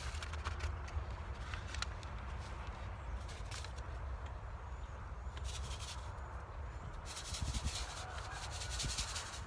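Paper packet of lettuce seeds rustling and crinkling in the hands as the seeds are shaken and mixed inside, in irregular spurts that are busiest near the end.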